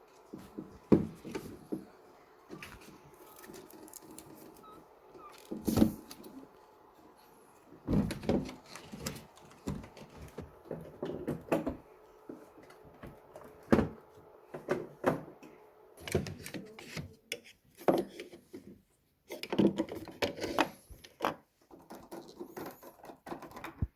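Irregular knocks, clicks and clatter of hands working on the key action of a Yamaha Clavinova CLP-230 digital piano, with parts being handled and set down.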